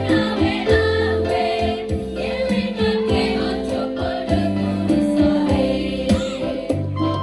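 Women's choir singing in unison with electronic keyboard accompaniment, the bass notes pulsing in a steady beat under sustained sung notes.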